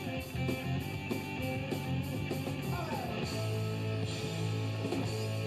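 Rock music soundtrack with guitar.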